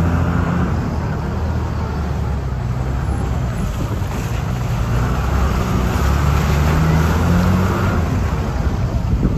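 Motor vehicle engine running with a steady low hum, its pitch rising and falling a little as the revs change, over a rumble of noise.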